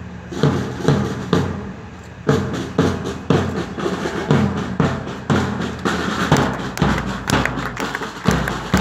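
School marching band's drums playing a steady march beat of about two strokes a second.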